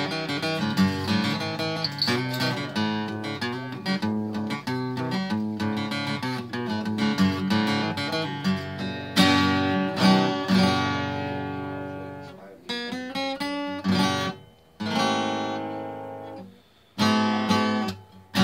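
Recording King RD-T16 dreadnought acoustic guitar with a torrefied top, played solo: a run of quick picked notes and chords, then about halfway it turns to chords left to ring out and fade, with short pauses near the end.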